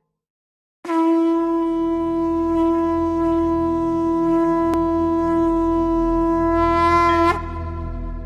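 Conch shell (shankh) blown in one long steady note for about six seconds, its pitch lifting slightly just before it stops abruptly. A low drone runs underneath.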